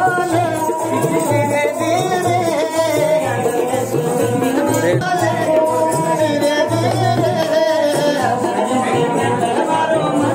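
Live Rajasthani folk music: a bowed string instrument carrying a wavering melody over a dholak drum beating a steady rhythm, with singing.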